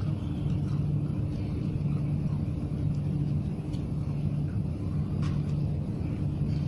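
Steady low mechanical rumble with a constant hum, like an idling engine, with a few faint clicks.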